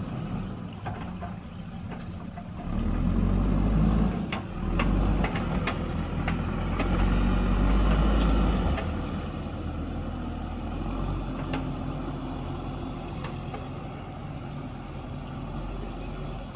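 JCB backhoe loader's diesel engine running under load, growing louder for several seconds as it works and then settling back, with a few sharp knocks in the middle.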